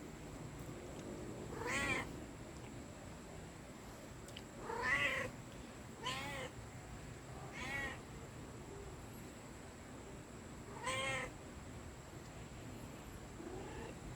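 Domestic cat meowing five times, each meow short and separated by a few seconds.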